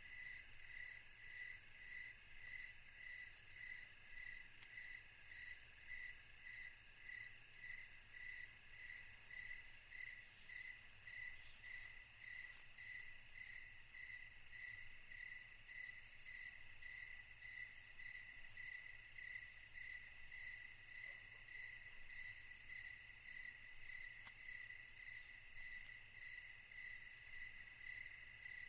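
Faint insects chirping steadily, a high pulsing note repeating about twice a second over a continuous higher trill.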